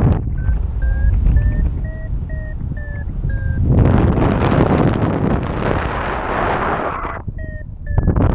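Paragliding variometer beeping its climb tone, short beeps about two a second whose pitch steps up and then dips slightly, signalling rising air, over wind noise on the microphone. From about four seconds in a louder rush of wind drowns the beeps out, and they return near the end.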